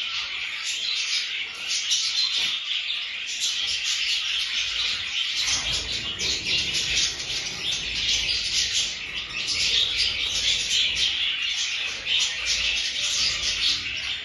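A flock of small birds chirping together, a dense chorus of many overlapping short chirps. A low rumble joins underneath about five seconds in.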